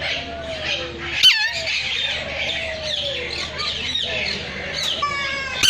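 Many aviary birds chirping together in a dense chorus, with two loud harsh squawks that fall in pitch, about a second in and again near the end.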